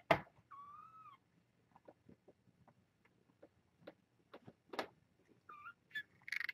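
A young kitten mewing: one short, high mew just after the start and another about five and a half seconds in. Around the mews are a sharp knock at the very start and scattered soft clicks and taps.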